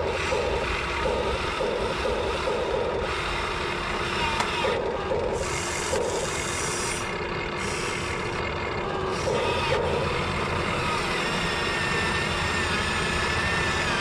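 Huina 1550 RC excavator's electric motors whining as the arm works and lifts a log. The whine comes in short repeated pulses at first, then turns steadier and wavers in pitch near the end.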